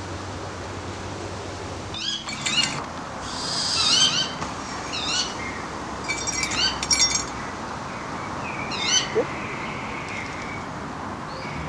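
A bird of prey calling: short, high-pitched notes repeated in several bursts, starting about two seconds in and dying away shortly before the end.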